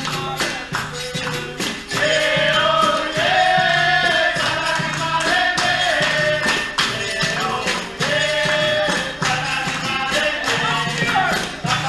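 Capoeira roda music: berimbau and pandeiro playing a steady rhythm, with group singing coming in about two seconds in.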